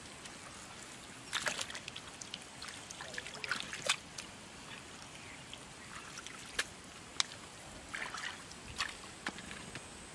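Shallow muddy water trickling faintly, with scattered small splashes and wet squelches as mud is packed by hand into a mud dam.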